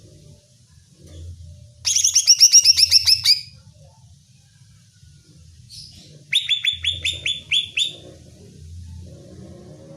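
Green leafbird (cucak ijo) singing: two fast runs of sharp, downward-sweeping notes, the first about two seconds in and the second just past the middle.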